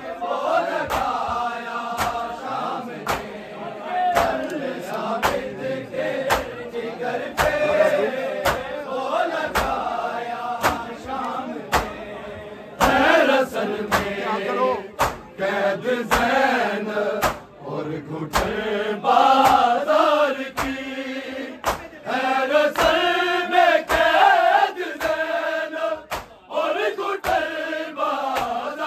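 Men chanting an Urdu noha, a Shia mourning lament, with sharp beats on a steady rhythm of about one and a half a second: matam, the mourners' hands striking their chests in time with the lament.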